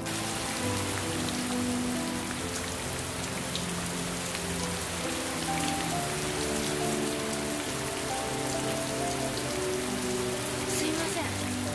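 Heavy rain falling steadily on wet pavement, starting suddenly at the outset. Soft background music of long held notes that shift in pitch every second or so runs underneath.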